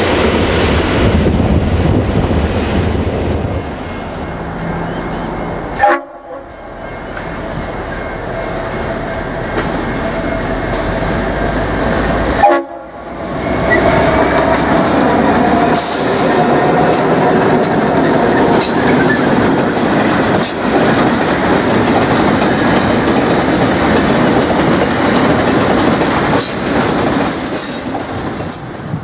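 Diesel-electric freight locomotives rumbling past, then a long train of grain hopper wagons rolling by with a steady clatter of wheels and many sharp clicks over the rail joints. A sustained locomotive horn note sounds a little before the middle, and the sound breaks off abruptly twice where the footage is cut.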